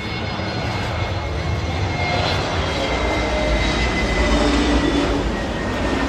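Airbus A320-family airliner's twin jet engines on landing approach, passing close by. A steady rumble swells toward its loudest about five seconds in, with a faint high whine sliding slowly down in pitch.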